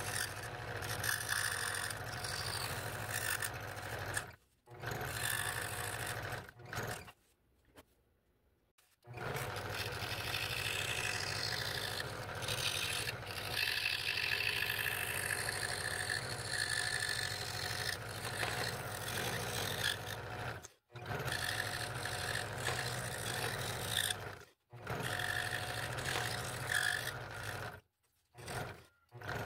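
Scroll saw running with its fine blade reciprocating as it cuts fretwork openings in wood, a steady mechanical hum. The sound breaks off to near silence several times for a moment, once for about two seconds.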